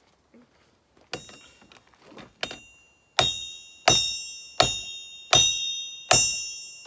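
Blacksmith's hammer striking steel on an anvil: a few light taps, then from about three seconds in a steady run of hard blows, roughly one every three-quarters of a second, each leaving a high metallic ring that fades.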